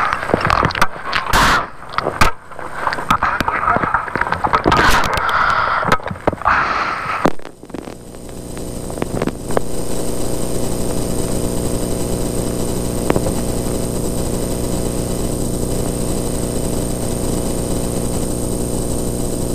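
Clatter, clicks and rustling of harness and gear in a race car's cockpit as the driver unbuckles and climbs out. From about eight seconds in, a steady engine drone holds at an even pitch.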